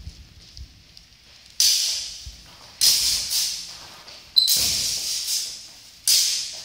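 Thin practice swords clashing and scraping together in free sparring: four sharp, hissing hits, each dying away over about a second, the third with a brief metallic ring.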